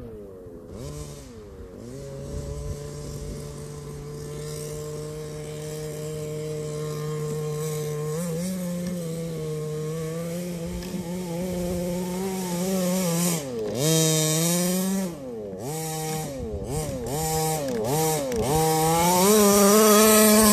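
Small two-stroke engine of a 1/5-scale petrol RC car, 30.5 cc. It runs at a fairly steady pitch for several seconds, then revs up and down repeatedly with quick throttle changes, and climbs to its loudest at high revs near the end.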